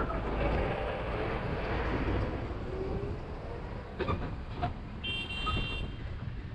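Car engine and road noise heard from inside the moving car, with a heavy dump truck passing close in the opposite direction during the first few seconds. A couple of knocks come as the car runs onto rough, broken dirt road about four seconds in, then a short high-pitched beep sounds about five seconds in.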